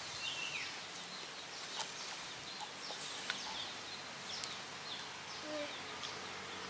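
Outdoor background with small birds chirping on and off, short quick calls over a steady hiss, and a few faint sharp clicks.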